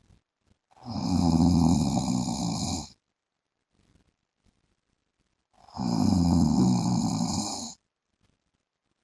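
A man snoring in his sleep: two long snores about five seconds apart, each lasting about two seconds.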